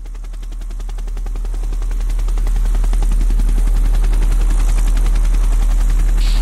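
Electronic bass demo music of the kind made for testing car-audio subwoofers. A very deep steady bass tone swells up over the first three seconds under a fast, even, rattling pulse.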